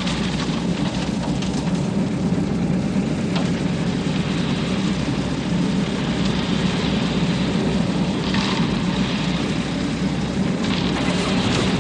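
Engine of a self-loading concrete mixer truck running steadily under work. A few short bursts of hissing or scraping noise come over it about eight seconds in and again near the end.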